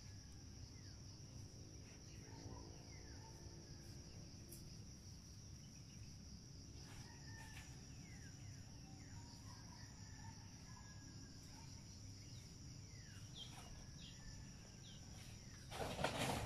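Steady high drone of insects, with scattered short bird calls and a rooster crowing faintly about two to four seconds in. A brief loud noise near the end.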